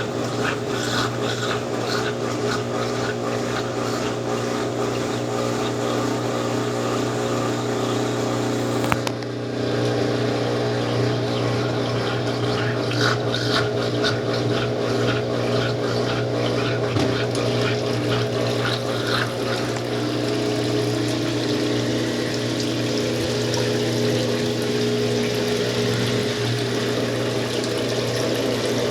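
Consul Facilite 10 kg washing machine running with a steady motor hum and water moving in the machine, with a brief dip about nine seconds in.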